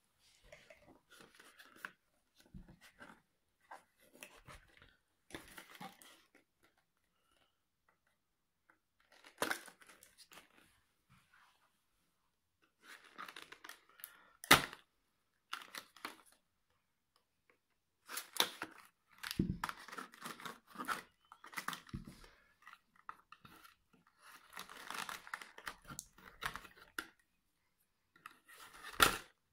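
Kitchen knife slitting the tape on a small cardboard box, with the cardboard tearing and rustling as it is handled, in irregular scratchy bursts separated by quiet gaps. A sharp click about halfway through is the loudest sound.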